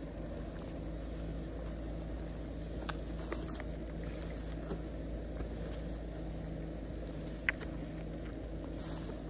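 Mahindra Scorpio N's 2.2-litre diesel engine running at a steady low speed as the SUV crawls along an overgrown forest track, with a few light clicks and one sharper click near the end.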